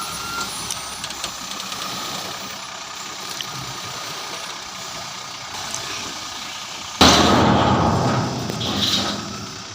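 Diesel engine of heavy earthmoving machinery running steadily, with a sudden loud rushing noise about seven seconds in that fades away over the next two seconds.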